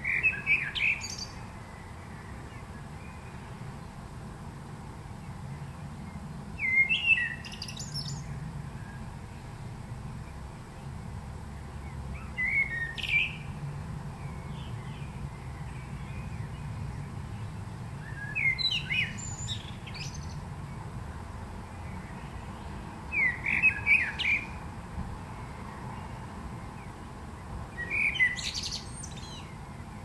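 Male Eurasian blackbird singing: six short phrases, each about a second long, separated by pauses of about five seconds, each climbing into high, thin notes at the end.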